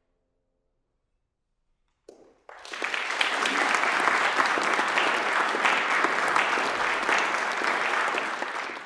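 After about two seconds of near silence, an audience breaks into applause, which then goes on steadily.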